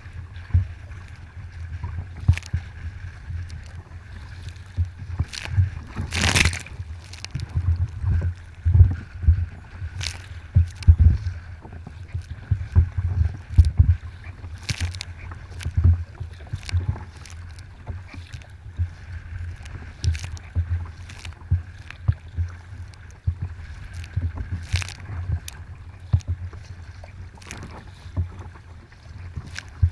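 Kayak on open water: irregular splashes of paddle and water against the hull over a steady low rumble.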